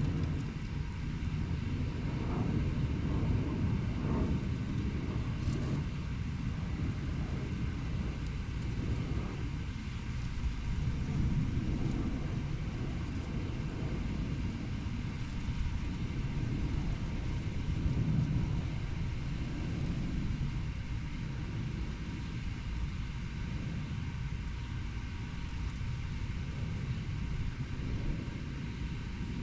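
Steady low rumble of distant urban road traffic, swelling and fading as vehicles pass.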